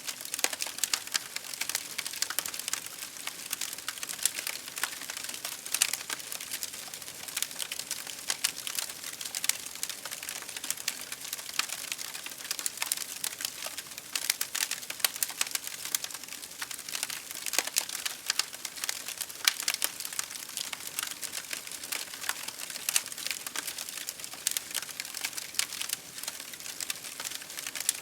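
Campfire crackling: dense, irregular pops and snaps over a steady hiss.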